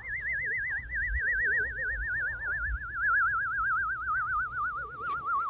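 A sound effect: a single whistle-like tone with a fast, even warble, about seven wobbles a second, gliding slowly downward in pitch, over a low rumble with a few soft thumps.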